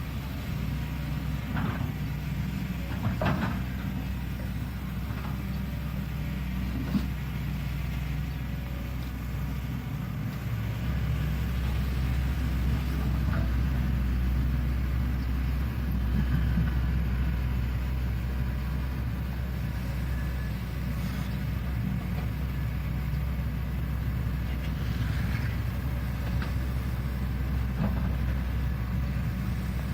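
Shantui excavator's diesel engine running steadily while digging, growing louder about eleven seconds in, with a few short knocks in the first several seconds.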